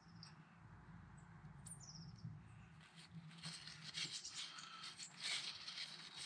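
Faint rubbing and scratching with small sticky clicks, starting about three seconds in, as fresh, still-tacky sealant around a camper roof chimney is wiped and smoothed by hand. A single short bird chirp sounds about two seconds in.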